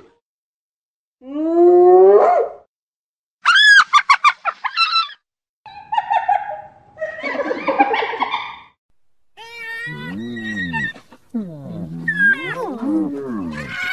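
Spotted hyenas calling in a series of varied cries. A rising call comes about a second in, then a quick run of high, short calls. Rougher, noisier calls follow, and the last few seconds hold wavering calls that rise and fall in pitch.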